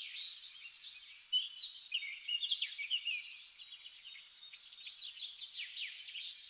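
Small songbirds chirping and twittering, several calls overlapping in quick runs of short, high notes and trills.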